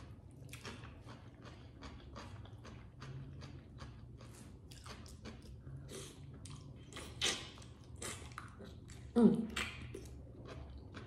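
Close-up chewing and wet mouth clicks of a person eating seafood boil by hand. A short vocal sound stands out about nine seconds in.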